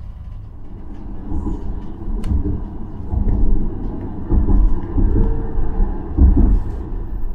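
Light-rail tram running along its track, heard from inside the car: a low rumble of wheels on rail that grows louder and more uneven from about three seconds in.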